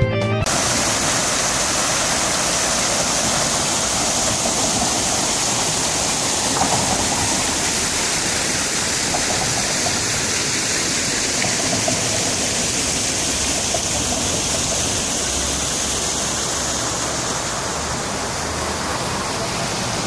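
Fountain water splashing from many jets into a round basin, a steady rushing noise.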